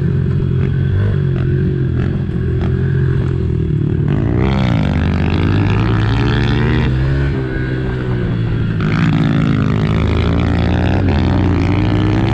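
Small single-cylinder four-stroke pit bike engines being ridden hard on a dirt track, the pitch rising and falling with the throttle. The revving picks up about four seconds in and again around nine seconds.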